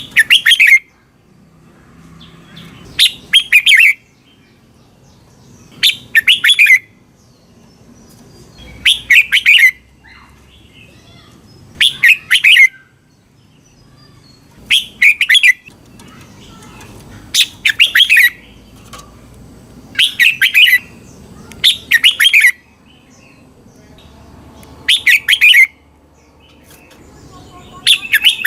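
Red-whiskered bulbul singing short, bright, warbled phrases, each under a second long, repeated about every two to three seconds.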